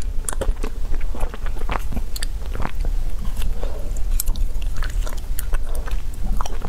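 Chewing a bitten-off mouthful of frozen ice cream bar, close-miked: irregular wet mouth clicks and chewing sounds.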